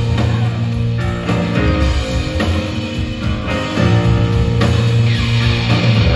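Live rock band playing through a PA: electric guitar, bass, keyboards and drum kit in a continuous loud passage.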